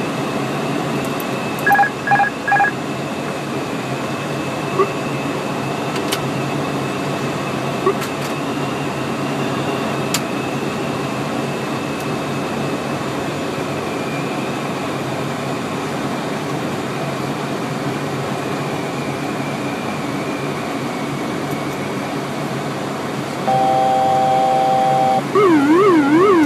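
Airliner cockpit on approach: a steady drone of engines and airflow, with three short electronic beeps about two seconds in. Near the end a steady chord-like tone sounds for about a second and a half, followed by a loud cockpit alert tone warbling rapidly up and down.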